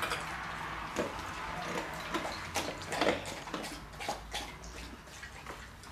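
A husky lapping water from a stainless steel bowl: a run of irregular wet laps and splashes, with small clinks against the metal.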